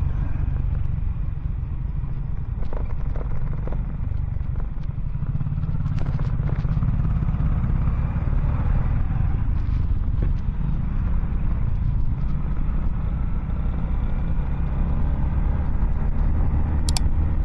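Motorcycle running at road speed, with a steady low rumble of engine and wind noise on the bike-mounted microphone and a few light ticks.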